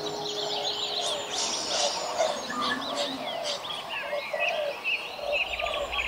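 A chorus of many birds calling at once: quick, overlapping high chirps with repeated lower calls underneath.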